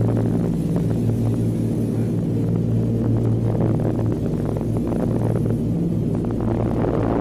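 Lockheed Super Constellation's Wright R-3350 radial piston engines and propellers, heard from inside the cabin during the takeoff roll as a steady, loud, deep drone.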